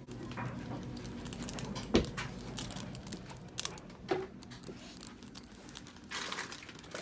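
Scattered clicks, knocks and rustling of people moving about a small room, with a sharp knock about two seconds in and another around four seconds in.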